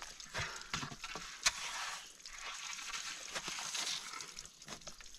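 Hands digging and scraping in snow and grit in a hollow under a rock, a gritty rustling broken by scattered sharp clicks, with one louder knock about one and a half seconds in.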